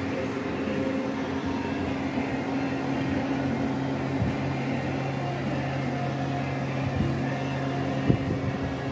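Steady machine hum at an even pitch, with a few light knocks, the sharpest about eight seconds in.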